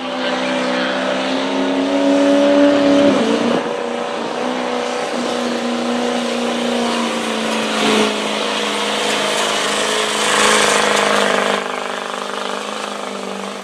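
Ford Super Duty diesel pickup engine running hard at high revs under the heavy load of a pulling sled. The drone drops in pitch about three seconds in and then holds steady.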